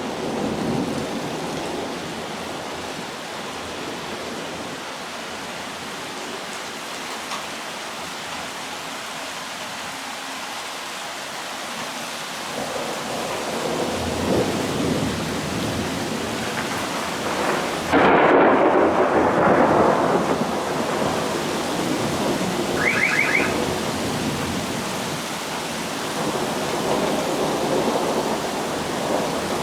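Steady rain with thunder rumbling from about twelve seconds in, then a sudden loud, close thunderclap about eighteen seconds in that rumbles on for several seconds.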